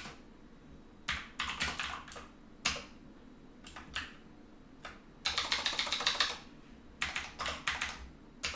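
Typing on a computer keyboard: keystrokes in short bursts with pauses between them, and a fast run of keys about five to six seconds in.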